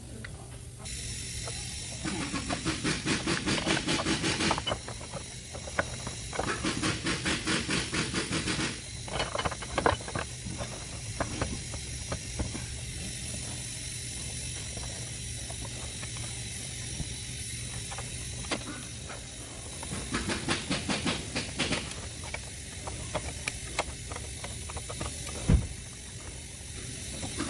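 Rapid mechanical clicking in three bursts of a few seconds each, with scattered single clicks and one sharp knock, over a steady hiss.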